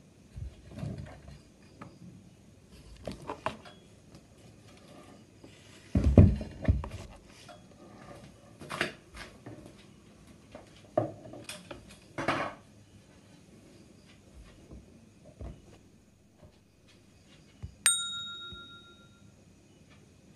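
Irregular thumps and rustles of movement, the loudest a low thump about six seconds in. Near the end, a single bright bell-like ding rings out and fades over about a second and a half.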